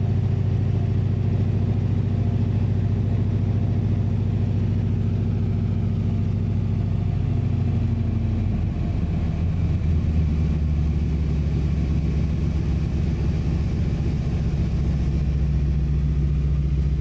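Floatplane's piston engine and propeller running hard, heard from inside the cabin, as the plane speeds across the lake on its floats to take off; the drone shifts in pitch about eight to ten seconds in.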